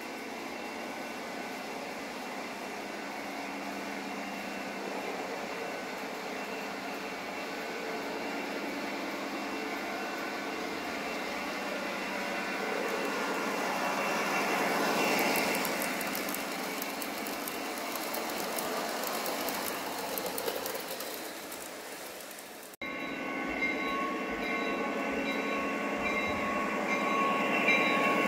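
Lionel GP30 O-gauge model diesel locomotive pulling passenger cars on three-rail track, its wheels rolling on the rails as it runs. It grows louder as the train comes toward the microphone, breaks off abruptly about three-quarters of the way through, then rises again as the locomotive passes close by at the end.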